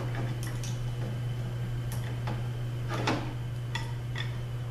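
Irregular light metallic clicks and ticks, about eight of them, some with a brief ring, as small bolts are driven with a hand-cranked driver into the piston holes of a Mercedes 722.3 K2 clutch drum. A steady low hum runs underneath.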